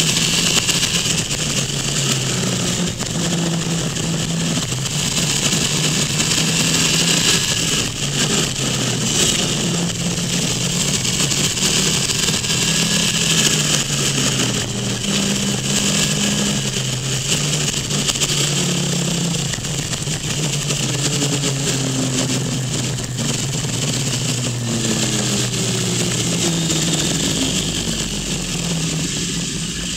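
Motorcycle engine running at road speed, its pitch stepping up and down again and again as the throttle and gears change, over a steady rush of wind.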